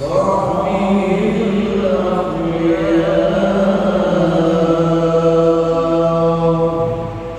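A man's voice reciting the Quran in melodic tilawah style, drawn out in long ornamented phrases with a long held note in the second half that fades out near the end.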